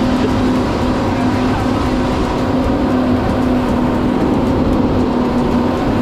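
Twin outboard motors running steadily at speed, a constant drone under the rush of wind and churned water.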